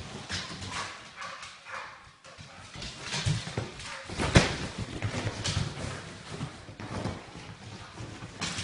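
Dogs scrambling and jumping about on a wooden floor: many quick clicks and thumps of paws and claws, with one sharp knock about four seconds in.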